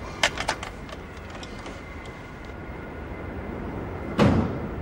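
A quick run of three or four sharp clicks, then near the end a loud thud as a small car's door is shut, the door of Mr Bean's green Mini.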